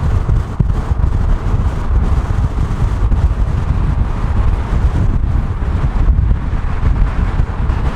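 Wind buffeting the microphone over the steady rumble of a moving car and traffic on the road.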